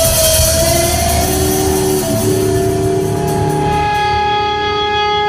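Rock music with an electric guitar holding one long, steady note over the band.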